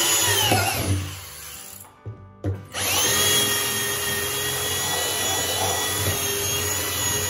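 Corded electric drill boring into the top of a plastic 55-gallon drum. It runs briefly in the first second, pauses, then gives a short burst and a longer steady run that stops near the end.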